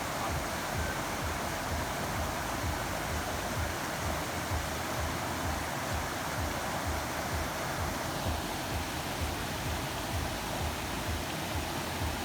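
Steady rush of flowing water, even and unbroken, with a low fluttering rumble underneath.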